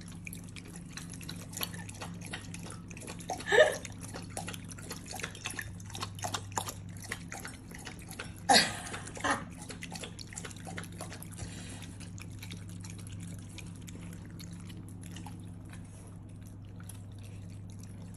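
A hairless cat lapping water from a ceramic bowl: a quick, irregular run of small wet laps and drips, with two louder sounds, one a few seconds in and one about halfway.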